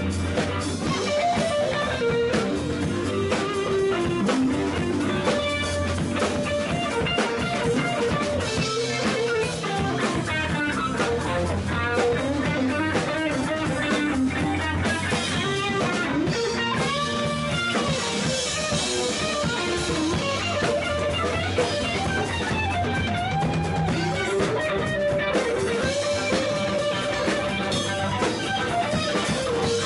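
Live band playing an instrumental passage with no vocals: an archtop electric guitar plays a bending lead line over bass guitar and drum kit.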